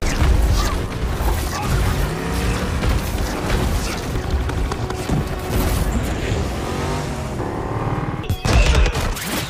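Action-film sound mix: a pickup truck's engine revving hard, its pitch rising and falling, with booms and score music under it. A sudden loud burst comes about a second before the end.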